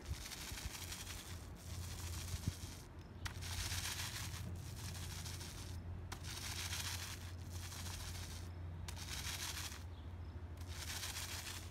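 A foam roller loaded with wet Tuff Coat rubberized non-skid coating is pushed back and forth across concrete, cross-rolling to blend the first coat. Each long stroke makes a sticky scraping rolling noise lasting a second or two, with short breaks between strokes.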